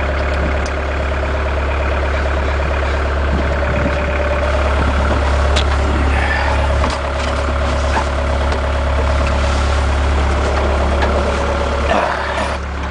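Bobcat mini excavator's diesel engine running steadily at idle, heard from inside the cab, with a few light clicks and knocks.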